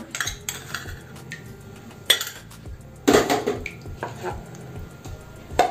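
Stainless steel utensils clinking: a spoon tapping and scraping a small steel cup as salt is added to a mixer jar, then steel pieces knocking together. A few scattered clinks, the loudest about two and three seconds in, and a sharp click near the end.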